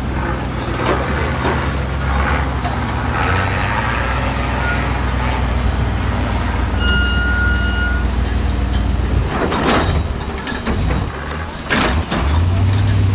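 A heavy 4x4 truck engine running steadily. A brief high whistle-like tone sounds about seven seconds in, two short rushing noises come near 10 and 12 seconds, and the engine note deepens and strengthens near the end.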